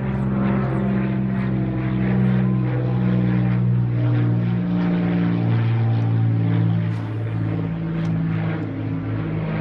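A steady, pitched engine drone, its pitch shifting slightly now and then.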